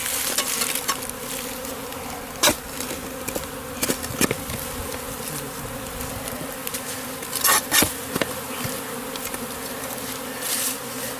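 Honeybee swarm buzzing steadily at close range. A few sharp knocks break through, the loudest about two and a half seconds in and a cluster around seven and a half to eight seconds in.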